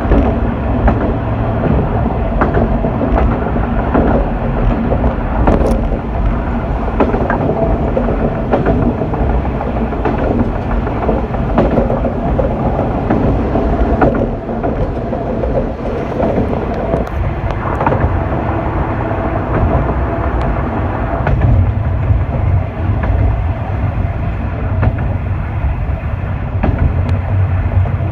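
Diesel railcar running along the track, with a steady engine note under the wheel and rail noise and irregular clicks from the rails.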